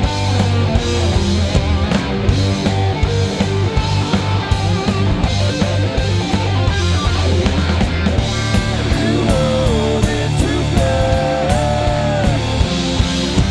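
Rock band playing live: electric guitars, bass guitar and drum kit, with dense, steady drum hits. About eight seconds in the part changes, and bending, gliding notes come in over it.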